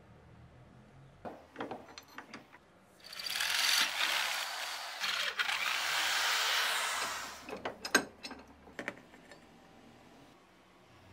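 Workshop tool sounds: a few clicks and knocks, then a steady hiss-like noise lasting about four seconds, then more sharp knocks.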